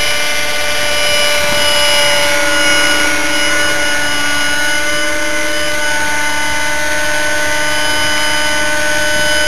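Model helicopter's OS 50 Hyper nitro engine, fitted with a Hatori performance muffler, running with the main and tail rotors of a T-Rex 600 Nitro Pro in flight: a loud, steady high whine of several tones, some shifting slightly in pitch a few seconds in.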